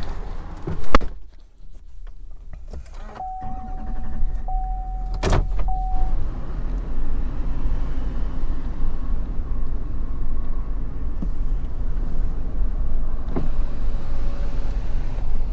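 Chevrolet pickup's driver door slamming shut about a second in, then a repeating dashboard chime and the engine starting and settling to a steady low idle heard from inside the cab. Near the end a power window motor runs briefly.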